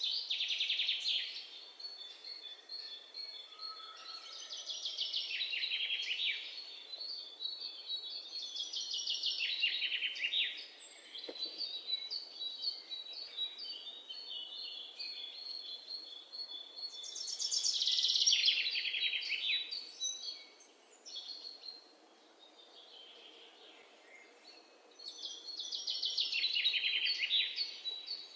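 A songbird singing. Loud, rapidly trilled phrases fall in pitch and repeat about five times, each lasting a second or two. Between them runs a string of quieter, evenly spaced high chirps.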